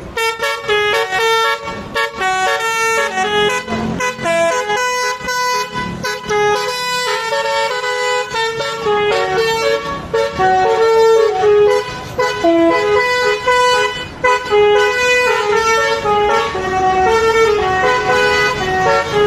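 Basuri telolet musical bus horn playing a melody of short, stepped notes that change pitch several times a second, sounding loudly without a break.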